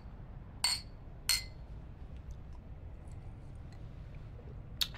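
Drinking glasses clinking together in a toast: two ringing clinks well under a second apart within the first second and a half, then one more short click near the end.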